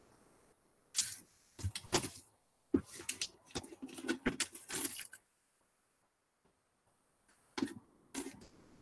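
Irregular clicks, knocks and rustles of small objects being picked up and handled on a workbench, in short clusters with a quiet pause of about two seconds before the last cluster.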